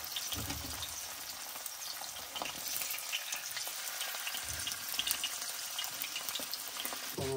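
Fish frying in hot oil in a karahi: a steady sizzle dotted with small crackles.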